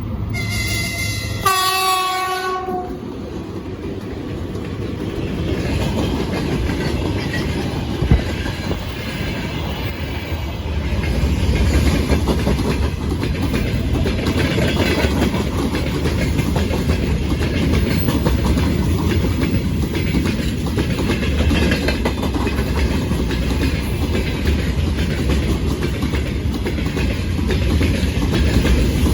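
VL80S electric locomotive sounding its horn at the start, a higher note then a lower note, both short. After that its freight train rolls past, wheels clattering rhythmically over the rail joints.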